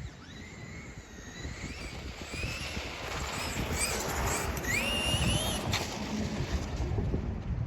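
Electric motor of a fast RC car whining, its pitch gliding up and down as the car speeds up and slows, over a low rumble.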